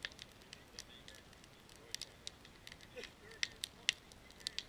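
Split-wood campfire crackling, with irregular sharp snaps and pops that come thickest about three to four seconds in.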